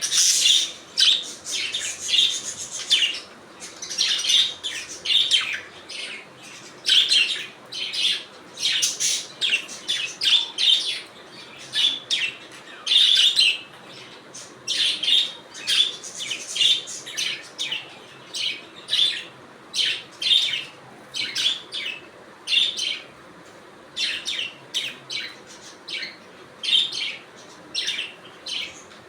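Pet budgerigars chirping: a continuous stream of short, high chirps, several a second.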